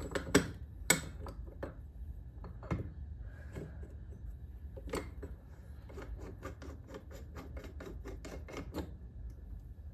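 Metal tool handling as a case splitter is set up on a motorcycle crankcase: a few sharp knocks in the first second, then a fast, even run of light clicks, about five a second, from about five to nine seconds in.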